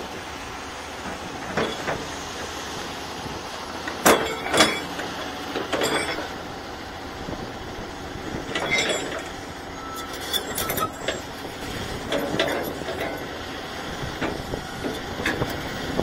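Caterpillar hydraulic excavator running steadily at a road dig, with sharp metal knocks and clanks every second or two as its bucket works the ground.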